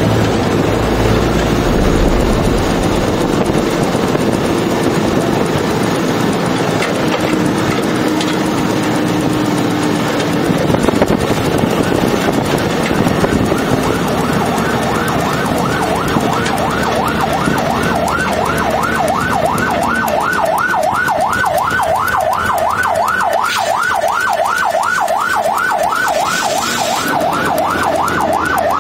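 Airport fire-rescue truck on the move, its engine and road noise steady. About halfway through, a fast yelping siren starts, rising and falling about three to four times a second.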